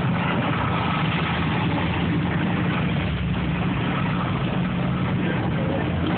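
Engines of classic cars running as they drive past one after another, a steady low rumble.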